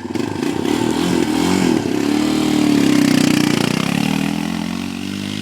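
Small ATV engine running and revving as the quad rides off, its pitch wavering at first, growing louder to about the middle, then fading near the end.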